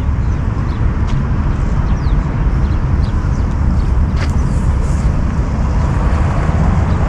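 Steady low rumble of outdoor city noise on an open square, with a couple of faint short ticks.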